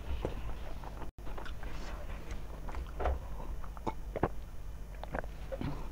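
Close-miked eating sounds: chewing and wet lip-smacking over a mouthful of chicken curry and rice, heard as a string of short, irregular clicks and smacks.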